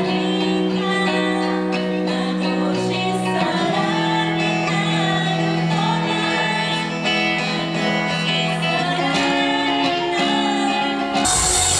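Two women singing live into microphones, backed by a guitar, with long held notes. About eleven seconds in it cuts abruptly to louder, fuller pop music.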